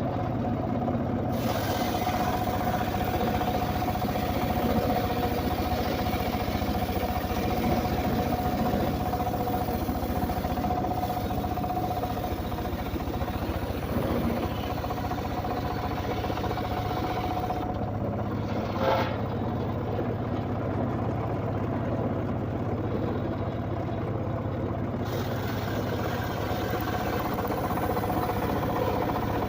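An engine idling steadily, with one brief knock about nineteen seconds in.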